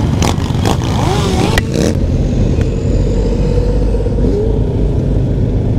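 Sport motorcycle engine running while riding, under heavy wind rush on the microphone, with a few brief knocks in the first two seconds.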